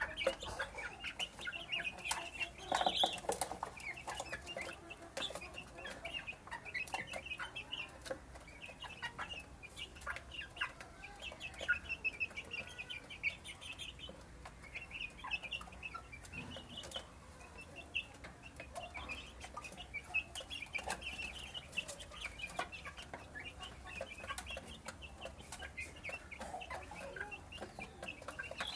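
A flock of young chickens peeping steadily with many short, high calls as they feed, over sharp taps that fit their beaks pecking at feed and the dish.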